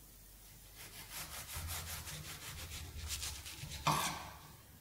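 Serrated knife sawing back and forth through crisp, flaky mille-feuille pastry: a faint run of quick, even rasping strokes, with a louder scrape about four seconds in.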